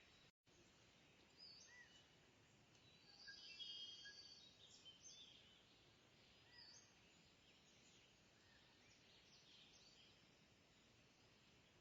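Faint birds chirping and trilling over low background hiss, busiest a few seconds in, with a brief dropout to silence just after the start.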